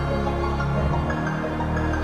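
Background music with long held notes over a low bass.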